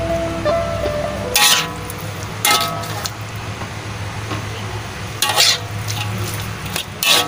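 Metal spatula scraping and knocking against a metal wok as fern shoots are stir-fried, four sharp scrapes a second or more apart over a low frying sizzle.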